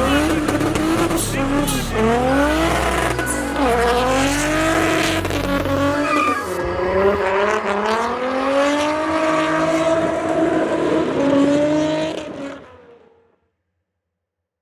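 Car engine revving up and down repeatedly with tyre squeal, over background music with a bass line; it all fades out about two-thirds of the way through.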